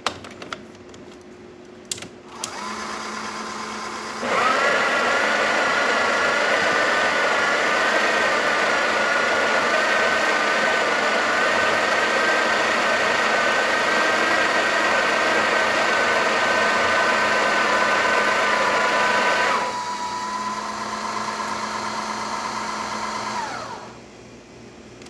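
Breville Oracle's built-in burr grinder grinding a double dose of coffee with a loud, steady whine for about fifteen seconds, after a quieter motor start. The grinding then gives way to the quieter run of the motorised auto-tamp for a few seconds, which winds down and stops near the end.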